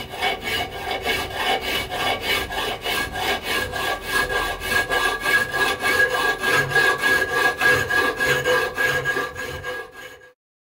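Hacksaw cutting 10mm steel flat bar clamped in a vise, in quick regular strokes of about three a second, with the steel ringing faintly; the sound fades out near the end.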